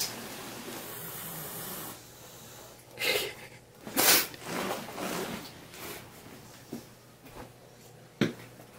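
Domestic cat hissing defensively at an unfamiliar cat: two sharp hisses about three and four seconds in, the second the louder, followed by a few weaker ones. A short click comes near the end.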